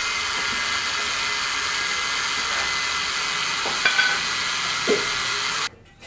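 Steady loud hiss, with a few faint metallic clinks about four and five seconds in; it cuts off abruptly near the end.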